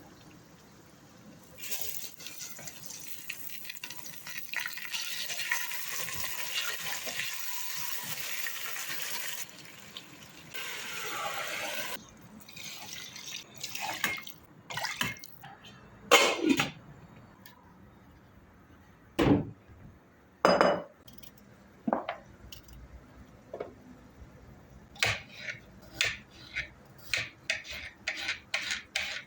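Water running from a kitchen tap for several seconds, stopping, then a shorter second run. After it come scattered knocks and clinks of dishes and utensils being handled, turning into a quick series of short scraping strokes near the end.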